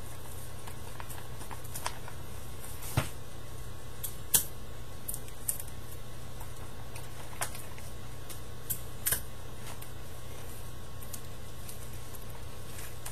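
Paper and sticky tape being handled while a paper model's handle is taped up: scattered short crinkles and clicks, the sharpest about three and four and a half seconds in, over a steady low hum.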